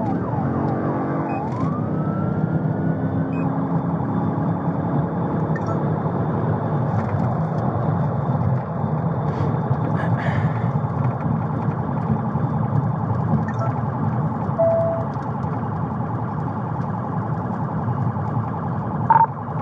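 Police patrol car siren heard from inside the cabin over engine and road noise: a sweep rising in pitch in the first few seconds, then a rapid, fast-repeating warble. A short beep sounds about three-quarters of the way through.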